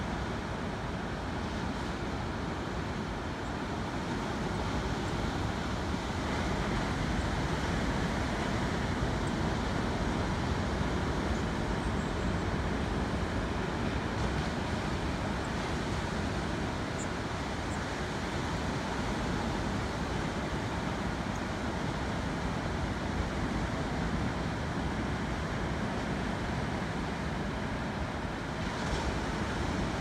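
Ocean surf washing onto a rocky shore: a steady rushing wash that swells slightly several seconds in and then eases.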